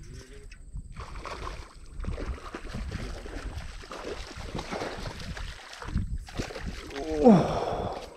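A hooked largemouth bass thrashing and splashing at the pond surface as it is reeled to the bank. Near the end comes a short falling pitched sound, the loudest moment.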